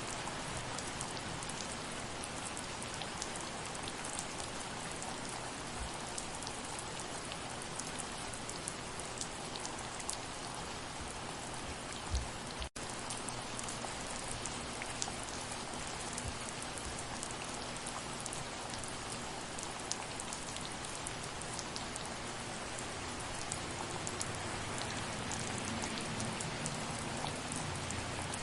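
Steady soft rain, with many individual drops pattering. About twelve seconds in there is a short low thump, followed by a split-second gap in the sound.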